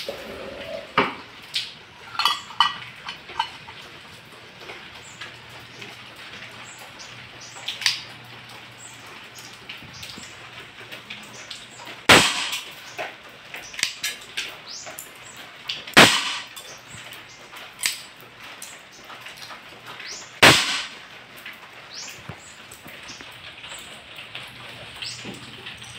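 ASG Dan Wesson 715 CO2 airsoft revolver firing three single shots about four seconds apart, each a sharp crack with a short ring. Lighter clicks in the first few seconds come from handling the revolver.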